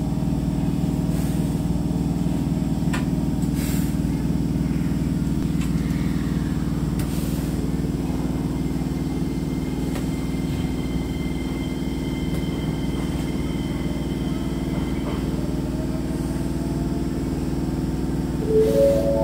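Steady low hum of a Keisei Line electric train heard from the driver's cab, even throughout, with a few short rising notes near the end.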